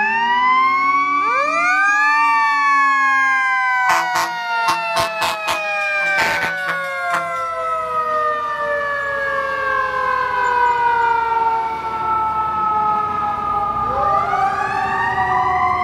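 Fire engine's mechanical siren winding up, then coasting slowly down in pitch for several seconds and winding up again near the end. A quick series of short horn blasts cuts in after about four seconds, and a low steady rumble sits under the siren later on.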